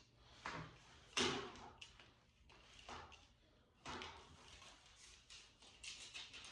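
Irregular knocks and scrapes of objects being handled, the loudest about a second in, with a quick run of small clicks near the end.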